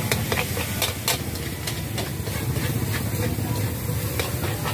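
Minced pork sizzling in a wok with a steady hiss, while a metal spatula scrapes and clinks against the wok again and again as it is stir-fried.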